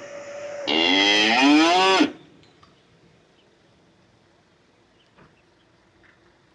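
A recorded cow's moo, played as an electric car's custom lock sound effect: one loud call about a second and a half long, rising in pitch. A faint steady tone comes before it.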